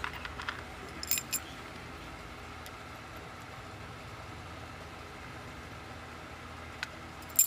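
A few small metallic clicks and taps as brass lock parts are handled, two or three about a second in and a sharper one near the end, over steady faint background noise.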